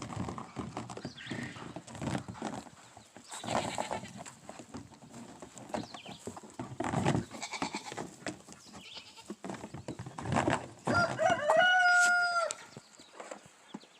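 A rooster crowing once near the end, a loud call that rises and then holds a steady pitch, after a run of short, scattered farmyard animal noises.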